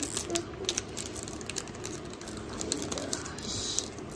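Foil booster-pack wrapper crinkling and trading cards rustling in the hands: a run of small, sharp crackles and clicks, with a brief denser crinkle about three to four seconds in.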